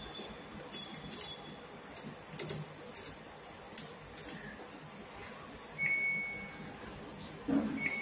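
Samsung washing machine's program dial clicking through its positions as it is turned, a dozen or so sharp clicks, followed by two short electronic beeps, one about six seconds in and one near the end. The beeps come as the buttons are pressed with the child lock on: the machine is refusing the input.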